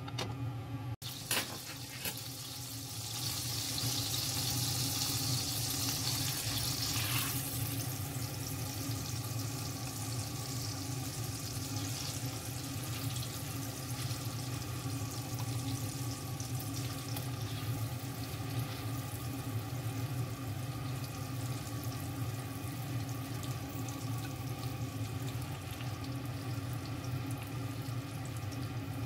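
Food frying in butter in a frying pan, with a steady sizzle. About three seconds in the hiss grows louder for a few seconds, then settles back to an even sizzle over a low steady hum.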